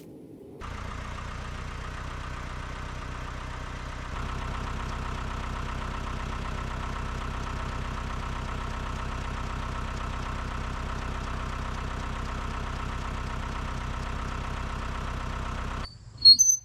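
An engine running steadily. It starts abruptly, gets louder about four seconds in, and cuts off shortly before the end, followed by a brief sharp click.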